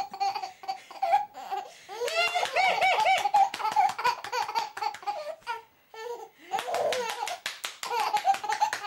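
A baby laughing in bursts while clapping his hands, with many sharp claps in quick succession, most densely near the end.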